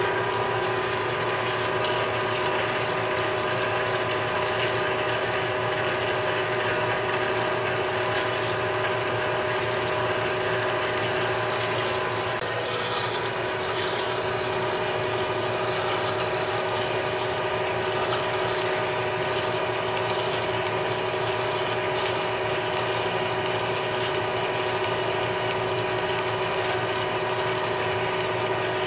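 Manual lathe running at about 355 RPM while an AMEX indexable-insert spade drill bores deep into solid bar stock under flood coolant. It makes a steady mechanical whine with several held tones over a hiss of coolant spray and cutting.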